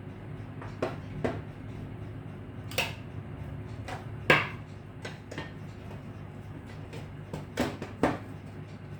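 Set-top box casing and parts being handled during a power-supply repair: about eight sharp knocks and clicks, the loudest about four seconds in, over a steady low hum.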